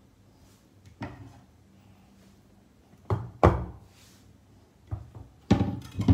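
Several short, dull thumps and knocks, the loudest about three and a half and five and a half seconds in, from a stainless steel bowl being handled and set down on a kitchen counter.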